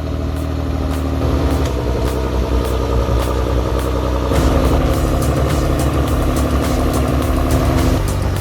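Homemade 150-horsepower tractor's engine running under heavy load, straining as it hauls a heavily loaded firewood trailer through mud; its note shifts about halfway through.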